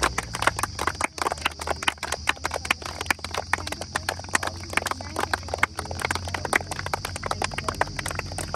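A rapid, irregular run of sharp clacking knocks, several a second, over a steady high hiss.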